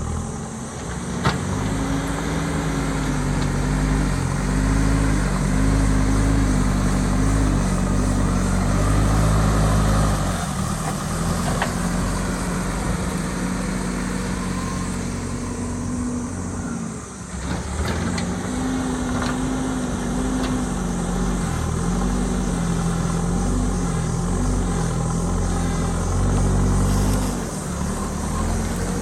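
JCB ecoXcellence backhoe loader's diesel engine running under load, its pitch rising and falling as it works, with one sharp knock about a second in.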